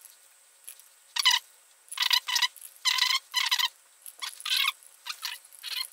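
Steel head bolts clinking against each other and against the engine's cylinder head as they are handled and set into their holes: a string of short, bright metallic clinks and rattles.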